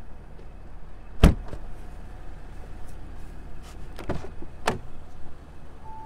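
A car door of an Audi RS5 Sportback shutting with one heavy thump about a second in, followed by a couple of lighter knocks a few seconds later, over a steady low rumble. A chime tone from the car starts right at the end.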